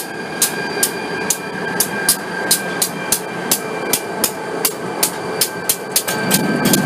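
A grade-crossing bell dings steadily, about two strikes a second, over the running of an NECR diesel locomotive rolling slowly past. The rumble swells near the end.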